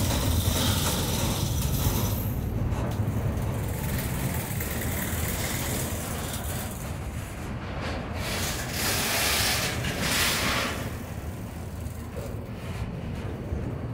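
Double-stack intermodal container train passing close by: steel wheels running on the rails with a steady low rumble and clatter. A broad hiss swells for about two seconds a little past the middle.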